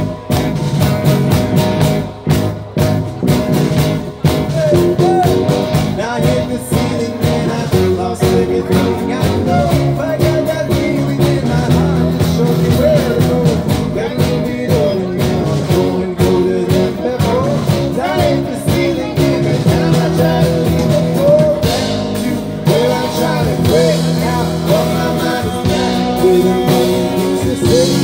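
Live band playing a rock song: acoustic and electric guitars, electric bass, cello and drums, with singing over the top.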